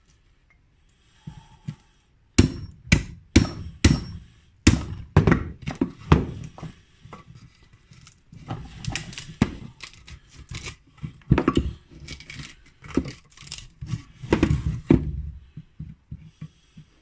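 A chisel being struck with a hammer to chip the old handle splice out of a wooden cricket bat blade. Irregular sharp knocks, some in quick runs, start about two seconds in and continue until shortly before the end.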